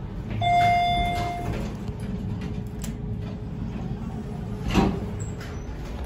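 Elevator arrival chime ringing once, a single held ding about half a second in that lasts about a second; on this Dover Traditional elevator the chime is a replacement, not the original. A thud follows near the end.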